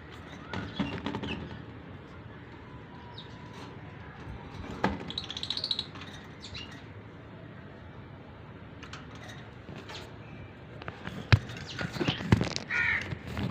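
Fischer's lovebirds: scattered short chirps and wing flutters, with a few sharp clicks and knocks, the loudest about eleven seconds in.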